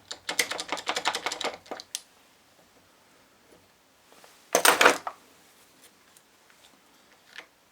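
Rapid metallic rattling, about a dozen clicks a second, as the shaft of a dismantled Ford Transit starter motor is wobbled by hand in its badly worn bearing, then a single short, louder clatter of the parts about halfway through.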